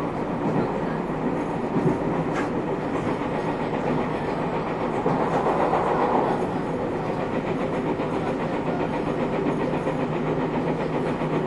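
Interior running noise of a JR 221 series electric multiple unit, heard inside motor car KuMoHa 221-70: steady rolling and motor noise with some wheel clatter on the rail joints. It swells briefly a little after halfway.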